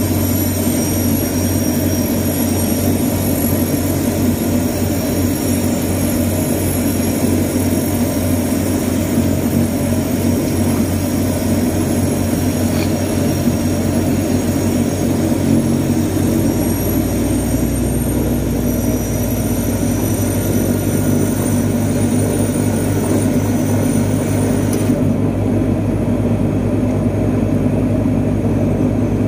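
Turboprop airliner's propeller engines running steadily, heard from inside the passenger cabin as a constant drone; a deeper rumble joins a little past halfway.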